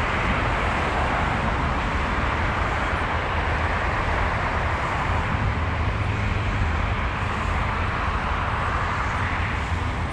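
Steady noise of road traffic, an even wash of passing cars with no single vehicle standing out.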